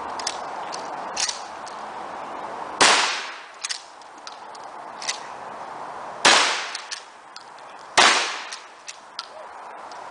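Shotguns firing on an outdoor range: three loud blasts, about three, six and eight seconds in, each ringing out briefly. Lighter clacks fall between the shots.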